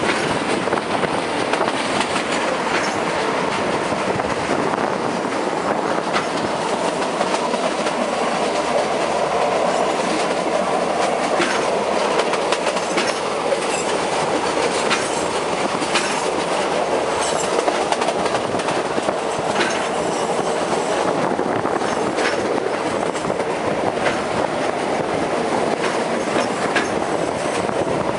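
Sleeper-train carriage running at speed, heard through an open window: a steady rumble and rush of wheels on rail and passing air, with sharp clacks over rail joints every second or two.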